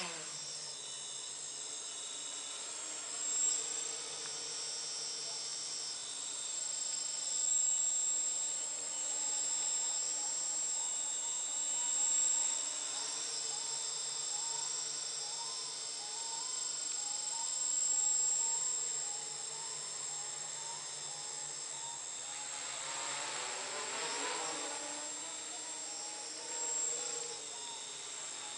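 Quadcopter's electric motors and propellers buzzing in flight: a high, whining drone whose pitch wavers up and down as the motors change speed. It swells louder with a sweeping pitch for a couple of seconds about two-thirds of the way through.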